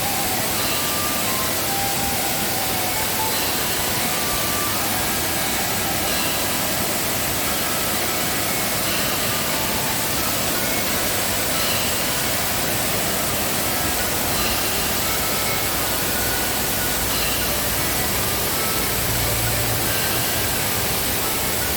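Waterfall swollen with rainy-season flow, a steady, unbroken rush of water.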